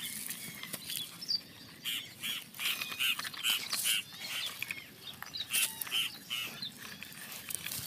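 Small birds chirping in quick, repeated short calls, in runs of several a second, with a few sharp clicks and knocks from a plastic toy truck being handled on the dirt.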